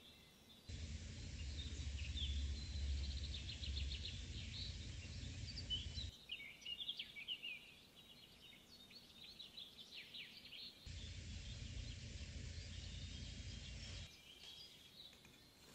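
Small birds chirping over outdoor background noise. A low rumble comes in twice and cuts off abruptly each time.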